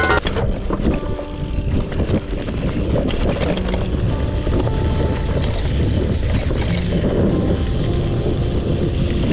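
Mountain bike descending a rough dirt trail: wind buffeting the microphone over a steady rumble of tyres on dirt, with scattered knocks and rattles from the bike.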